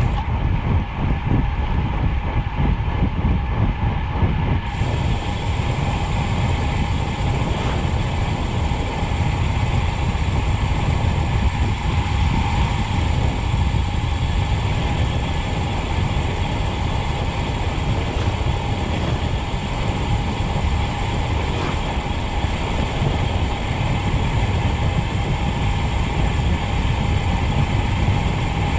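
Wind rushing over the microphone and tyres rolling on rough asphalt at about 52 km/h. Over it is a steady, even buzz from the rear freehub of an Elite ENT 50mm disc wheel as the bike coasts downhill.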